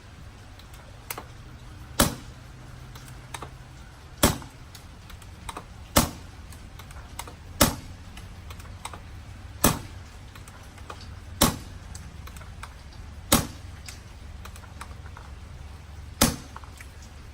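Empire Sniper pump-action paintball marker firing eight sharp shots, about two seconds apart, with lighter clicks between shots as the pump is worked.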